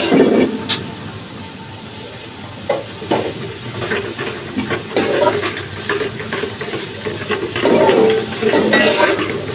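Metal spoon stirring and scraping against the inside of a large steel cooking pot, with food sizzling as it fries. The spoon strokes come unevenly, busier around the middle and near the end.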